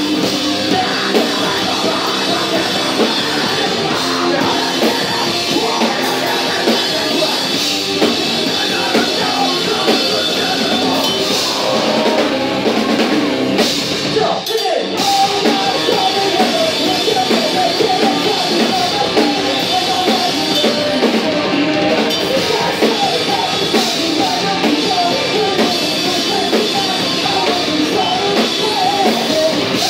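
Rock band playing live and loud: electric guitars, bass and drum kit, with singing. There is a brief break about halfway through before the band comes back in.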